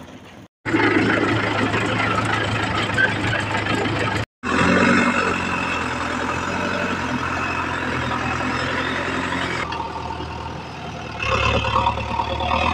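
Diesel engines of a JCB backhoe loader and a tractor running steadily, with a low engine hum under dense noise. The sound drops out abruptly twice near the start and grows louder near the end.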